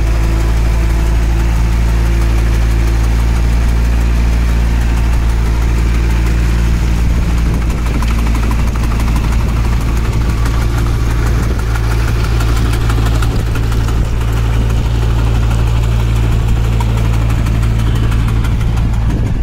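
Kubota tractor's diesel engine running steadily while it powers a rotary bund former cutting a ridge through wet paddy-field mud.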